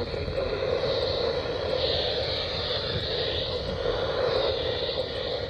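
A steady, loud hiss of noise with no clear rhythm or pitch changes.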